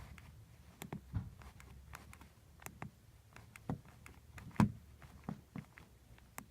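Scattered soft clicks and taps, about ten, irregularly spaced, with the loudest about two-thirds of the way through, over a faint low hum: the keys and joystick of a Sony Ericsson K700i being pressed to move on to the next ringtone.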